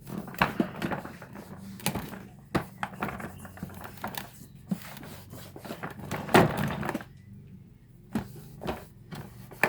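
Scattered knocks, taps and rubbing from handling and wiping down the plastic body of a Numatic cylinder vacuum cleaner, with a louder scrape about six seconds in.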